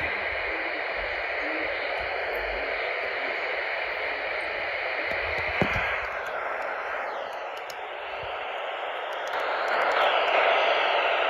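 Steady radio static hiss from a weather radio receiver, the warning broadcast lost to a weak signal. The hiss thins out a little around the middle and grows louder again near the end.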